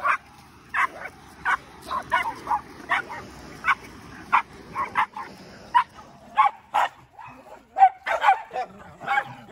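Cairn terriers barking: short, sharp yaps about one or two a second, coming faster and overlapping near the end.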